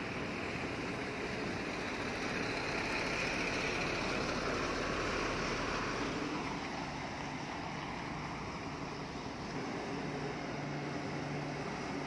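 Heavy construction machinery engine running steadily, swelling louder for a few seconds and then easing back, with a low steady hum coming in near the end.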